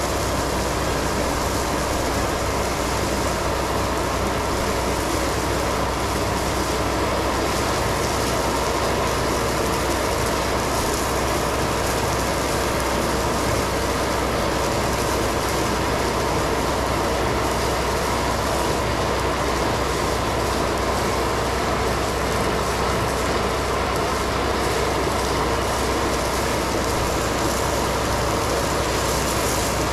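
Stone slinger truck throwing 3/4-inch crushed stone: a steady rushing rattle of gravel showering down onto the trail and pile, over the truck's engine and conveyor running.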